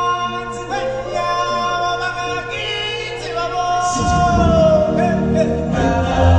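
Stage show music with singers holding long sung notes. About four seconds in, a deep bass part comes in and the music grows fuller and louder.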